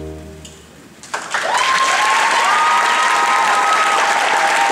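A held chord of music fades out, then about a second in a gymnasium crowd bursts into loud, steady applause with long, high-pitched cheers over it.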